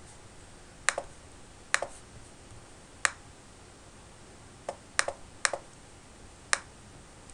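Computer mouse button clicking, about seven sharp separate clicks at irregular intervals, several heard as a quick press-and-release pair, over a faint steady hiss.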